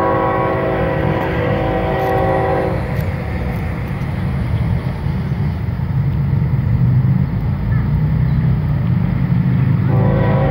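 Lead diesel locomotive of a CSX freight train sounding its multi-chime air horn in a long blast that stops about three seconds in and starts again near the end. Under it, the locomotive's diesel engine rumbles and grows louder as the train approaches, notched up under power.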